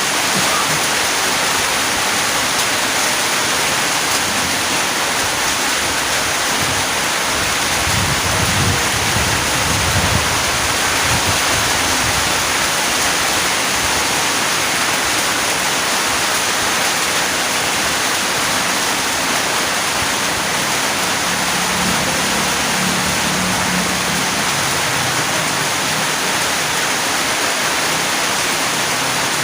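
Steady heavy rain, a dense even hiss with no let-up, and a brief low rumble about eight seconds in.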